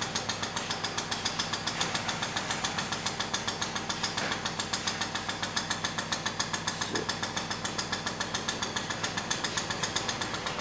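A small machine running steadily with a fast, even knocking rhythm of about five or six beats a second, over a low hum.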